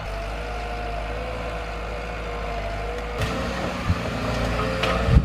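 A heavy machine's engine running steadily, with irregular knocks and clatter joining in from about three seconds in.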